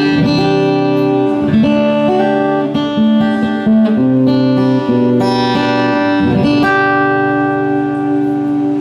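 Guitar being played: ringing chords and single notes, changing every second or two and left to sustain.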